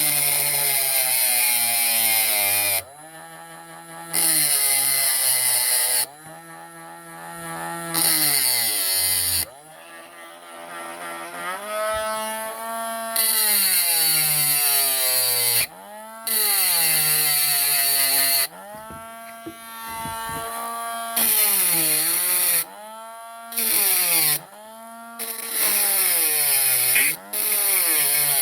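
Parkside power tool grinding down a rounded alloy rivet head. The grinding comes in repeated bursts of one to three seconds, about nine of them. Between bursts the motor runs on with a pitch that sags and recovers.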